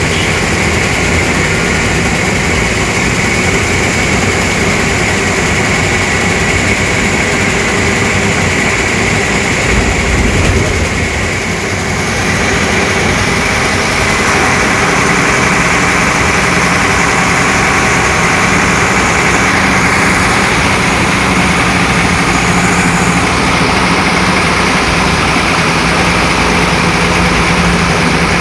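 Tata 1510 bus's diesel engine running steadily. About twelve seconds in the sound dips briefly, then settles into a steadier low hum.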